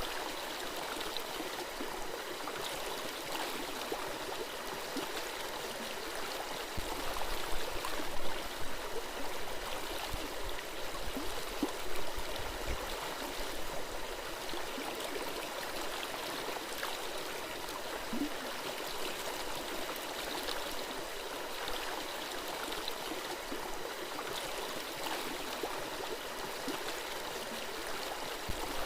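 Small forest stream flowing and gurgling over rocks, a steady babble with occasional louder splashes.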